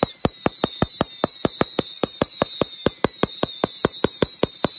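Dominator "High Riser" pro-level 1.4G firework cake firing a rapid, even volley of about five shots a second, over a high whistling that slowly falls in pitch.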